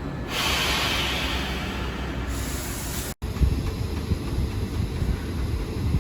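Rumble of a standing GBRf Class 73 locomotive, with a loud hiss of released air lasting about two seconds near the start. The sound drops out for an instant just after three seconds, then the rumble carries on.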